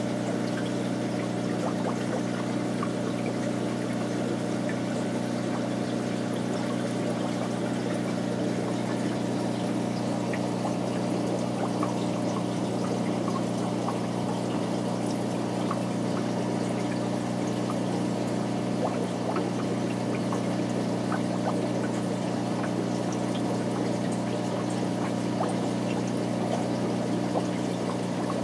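Aquarium water circulation running steadily: pouring and trickling water over a constant low pump hum, with small ticks of splashing.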